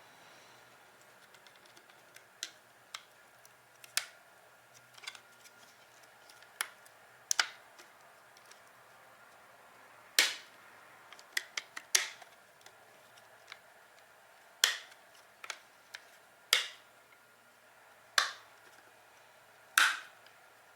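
Irregular sharp clicks and clacks of hard plastic parts being handled and snapped together, a dozen or more, the loudest ones in the second half.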